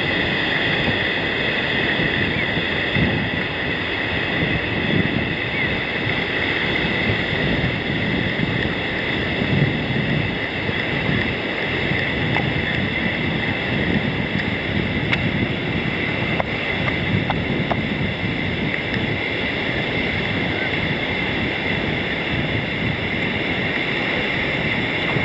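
Steady wind noise on the microphone over ocean surf washing up the beach.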